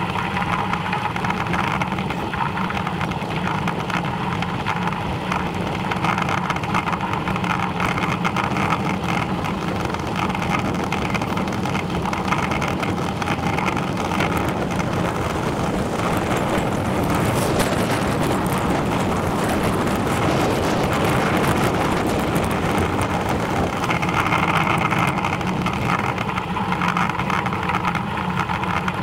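Steady rolling noise of a bicycle riding along a tarmac lane: tyre rumble on the road surface mixed with wind rushing over the microphone, a little louder and hissier for a few seconds past the middle.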